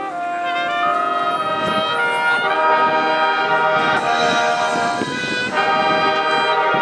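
Marching band playing: the brass section sounds held chords over the front ensemble's marimbas and other keyboard percussion. The chords fill out about two and a half seconds in and ease briefly near the end.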